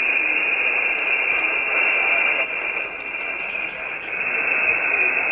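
Steady static hiss from a Chierda S890 mobile 11-metre transceiver's speaker, the receiver open on single sideband with no station coming through.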